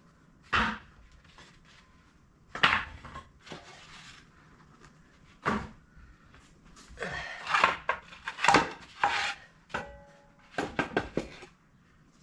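Sharp metal knocks and clanks from hand work on a tracked machine's undercarriage during a track replacement. The strikes come singly at first, then in quick flurries, some with a brief metallic ring.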